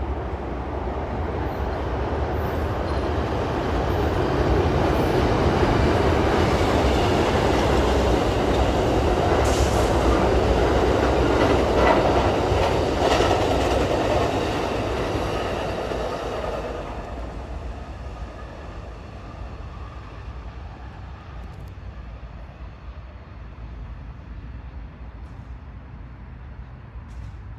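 Amtrak Coast Starlight passenger train, a P-42 diesel locomotive hauling Superliner cars, rolling past on the rails. The rumble of the wheels builds to a loud, steady passing noise, then fades as the train draws away.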